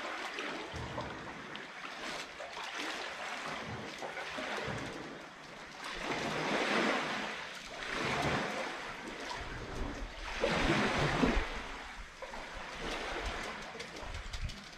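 Sea waves washing onto the beach, swelling and ebbing, with stronger surges about halfway through and about three-quarters of the way through.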